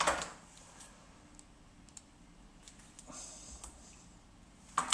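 Scissors handled on a wooden desk. There is a clatter as they are picked up, then a few light clicks, and a short rustling snip through the cable's cotton sleeving about three seconds in. A louder clatter comes near the end.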